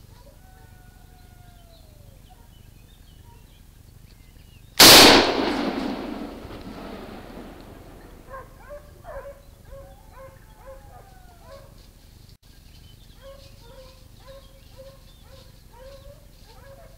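A single close, very loud gunshot from a hunting gun about five seconds in, echoing away over about three seconds. Hunting dogs yelp and bay in repeated short cries before and after the shot.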